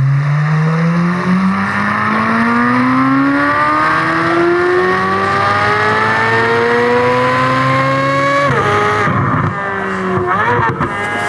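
Corvette Z06's flat-plane-crank 5.5-litre LT6 V8 at full throttle, its pitch climbing steadily through one long gear for about eight seconds up toward its 8,600 rpm redline. About eight and a half seconds in the pitch drops sharply at an upshift, and the engine pulls on at lower revs.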